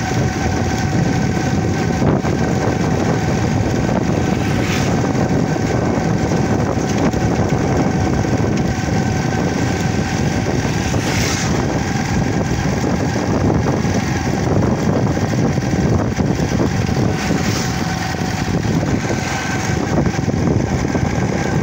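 Engine of the vehicle carrying the phone, running steadily while it travels, with a low rumble of road and wind noise on the microphone and a faint steady whine.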